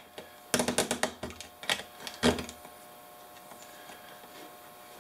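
A quick run of sharp clicks and taps, then one louder click about two seconds in, as fingers press and work a component loose on a small printed circuit board.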